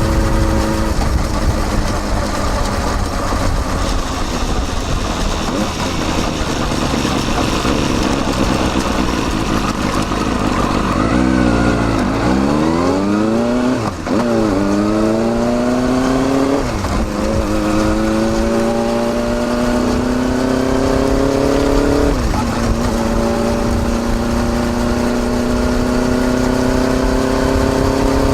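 Kawasaki Balius's 250 cc inline-four running through a baffled Wr's aftermarket muffler, heard close at the silencer. It holds a steady speed, drops in revs about a third of the way in, then accelerates, pulling up through the gears with three upshifts before climbing slowly.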